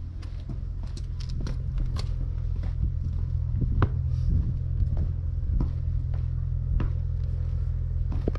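Footsteps on pavement at a walking pace, a sharp step about every half second, over a steady low rumble.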